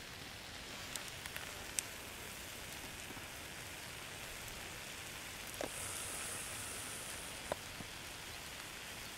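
Eggs, hash browns and ground beef frying in a hot cast-iron pan over a low campfire: a soft, steady sizzle with a few sharp pops and crackles. The hiss briefly gets brighter about six seconds in.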